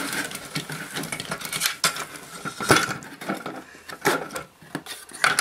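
Irregular clicks and clatter of printed circuit boards and their ribbon-cable and wire connectors being handled, with a few sharper knocks, the loudest nearly three seconds in and near the end.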